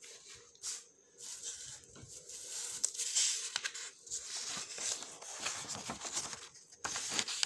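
Sheets of printed paper rustling and crinkling unevenly as they are handled and shifted, with a few light clicks.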